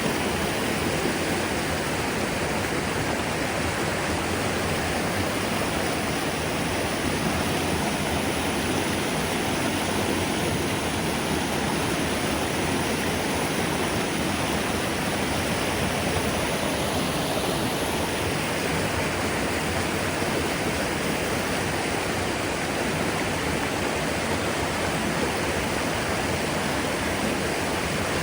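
Rushing water of river rapids: a steady, unbroken white-water noise.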